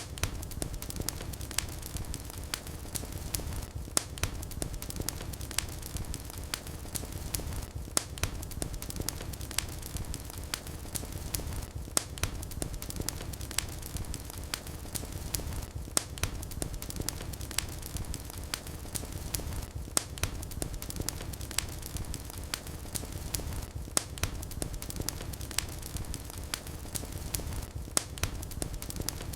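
Fire burning in a fireplace: a steady low rumble of flames with constant crackling and frequent sharp pops.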